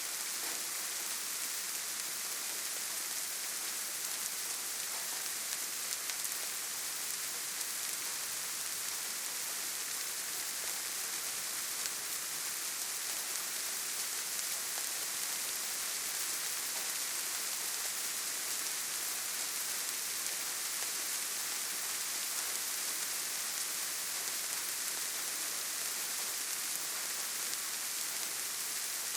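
Steady gentle rain, with soft drops pattering on leaves and grass. A constant high hiss with small scattered drop ticks, unchanging throughout.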